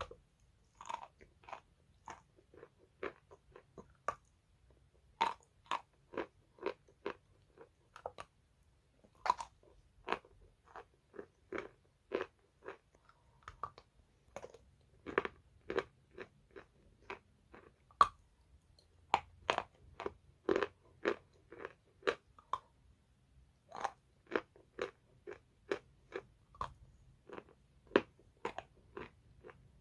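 Wet chalk being bitten and chewed: a long run of sharp crunches, about two a second, with a couple of short pauses.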